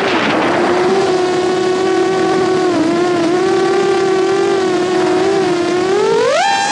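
FPV quadcopter's brushless motors whining at a steady pitch, then throttled up into a sharply rising whine near the end before dropping back.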